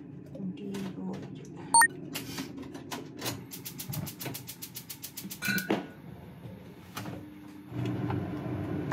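Gas hob burner's igniter clicking rapidly, about seven clicks a second for a couple of seconds, as the burner under the pot lights. A sharp single click about two seconds in is the loudest sound, and a steady rushing noise sets in near the end.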